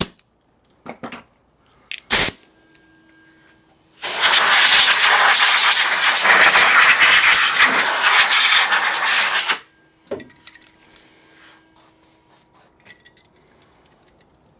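Pressurised spray hissing steadily for about five and a half seconds, with a few light clicks and one sharp knock shortly before it.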